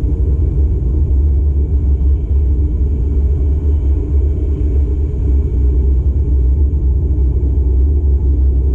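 Steady low rumble of a car driving, its engine and tyre noise heard from inside the cabin.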